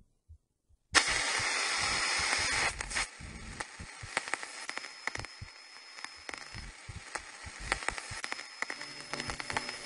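Hissing, crackling noise that cuts in suddenly about a second in, loudest for the first couple of seconds, then settles to a fainter crackle with scattered clicks. Faint music tones come in near the end.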